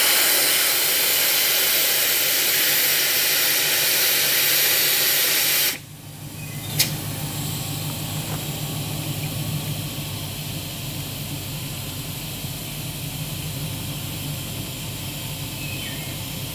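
Air rushing out of a truck tyre as it is aired down for the trail, a loud steady hiss that cuts off suddenly about six seconds in. A single sharp click follows, then only a fainter steady hiss with a low hum.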